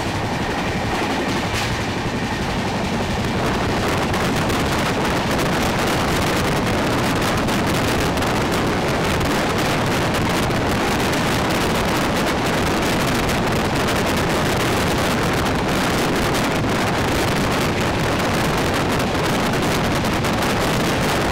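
Express train running at speed, heard from a window with wind rushing over the microphone. The noise is steady and loud, and swells a little about three seconds in.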